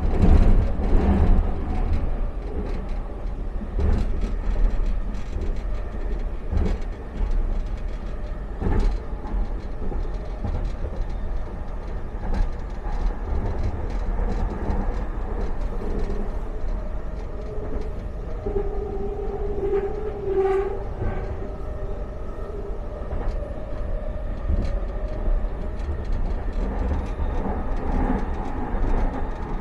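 Expo Line SkyTrain car running along the track, heard from inside the car: a steady low rumble with occasional sharp clicks from the wheels. A brief steady whine comes in about two-thirds of the way through.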